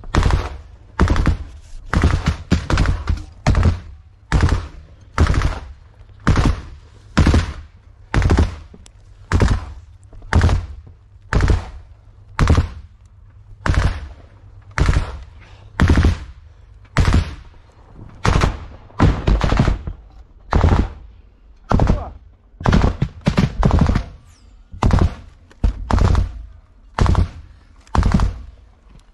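Close gunfire: single shots in a steady run, about one a second, each a sharp crack.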